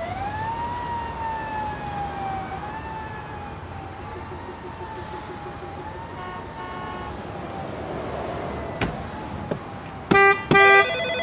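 A high tone that wavers and slowly drifts in pitch, then about ten seconds in two loud electronic rings, a corded car phone ringing before it is answered.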